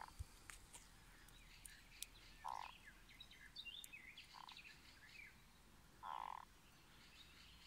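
A frog caught by a snake croaking strangely as it is swallowed alive, its vocal sac puffed up: four short, buzzy croaks about two seconds apart.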